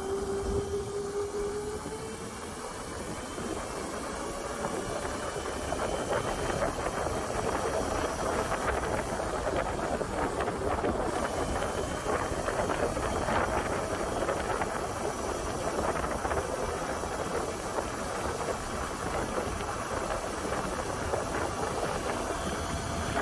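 Electric pit bike's ETM-kit motor whining, rising in pitch as the bike accelerates over the first couple of seconds. It then rides on with a fainter whine under a steady rush of wind and tyre noise.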